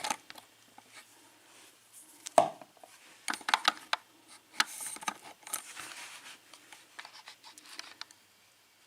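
Scattered small metal clicks and taps from a Yale pin-tumbler lock and hand tools being handled as the lock is taken apart, with a sharper knock about two and a half seconds in.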